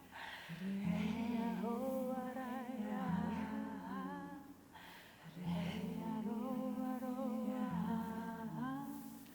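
Voices humming a slow lullaby a cappella: a wavering melody with vibrato over a low sustained hum that drops out and comes back every couple of seconds, easing off briefly about halfway through.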